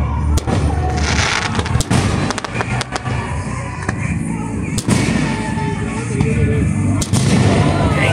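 Aerial fireworks bursting overhead: a run of sharp bangs and crackles, the strongest about five and seven seconds in, over a steady low rumble.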